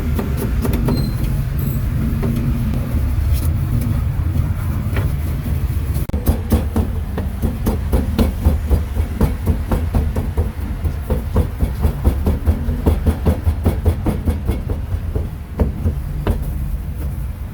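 A cleaver chopping pork on a wooden board, in quick, regular strokes of about three to four a second, from about six seconds in until near the end. A steady low rumble runs underneath.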